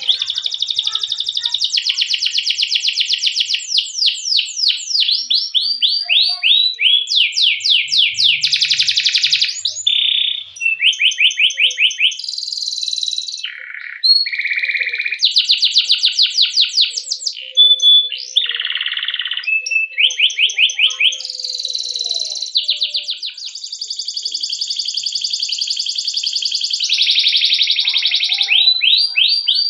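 Domestic canary singing a long unbroken song of rapid trills and rolls, high and fast, the phrase changing every second or two between quick sweeping notes and buzzy rolls.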